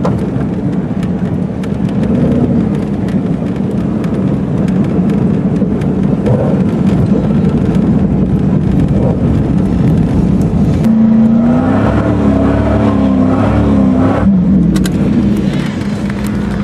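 Off-road vehicle's engine running as it drives over sand, heard from inside the cab, with steady rumble and many small rattles. About two-thirds of the way through the engine pitch rises and falls a few times as the throttle is worked.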